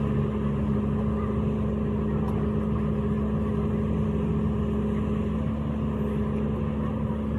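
An engine running steadily at an unchanging speed, with a constant low hum.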